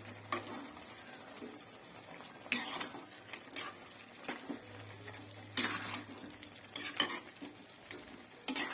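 A spoon stirring chicken and spice powders in a cooking pan, with irregular scrapes and clinks against the pan every second or so.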